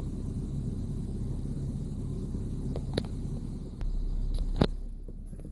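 Low, steady rumble of a car running, heard from inside the cabin, with a few sharp clicks, the loudest about four and a half seconds in.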